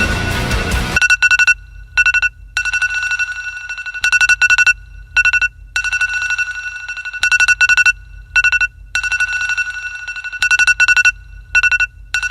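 Loud music cuts off about a second in. It gives way to a steady high-pitched electronic tone over a low hum, broken again and again by short gaps and bursts of rapid clicking.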